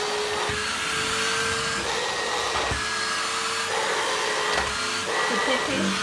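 AEG QX7 Animal cordless stick vacuum cleaner running steadily at a normal loudness: a constant motor whine over rushing suction air. There are a few light knocks as the floor nozzle is pushed about.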